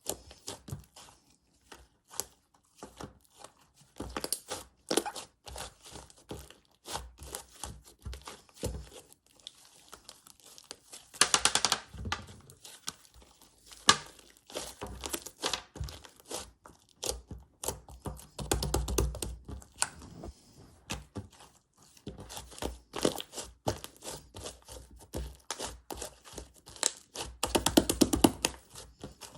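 Slime being squeezed and pressed by hand, folded into pockets and popped, giving a steady run of sticky clicks and small air-pocket pops. Denser crackling comes about a third of the way in and again near the end.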